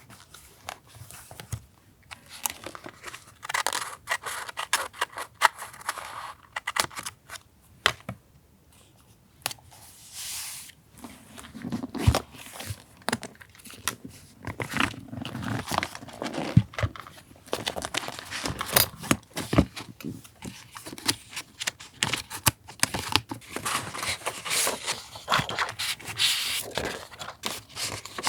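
Paper and stickers being handled for a journal collage: irregular tearing, scissor snips and crinkling, with many small sharp clicks and taps.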